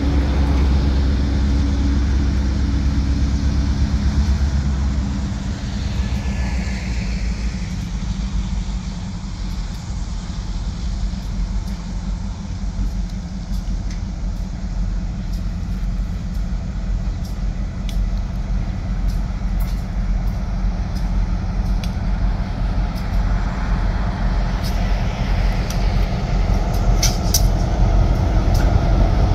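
Diesel locomotives running as they approach, with a steady low rumble that grows louder near the end. A run of sharp clicks comes as the lead unit draws level.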